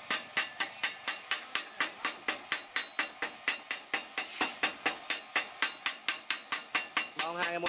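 Steel chipping hammer rapidly tapping on fresh stick-weld beads on steel plate, knocking off the slag: quick, even metallic taps, about five a second.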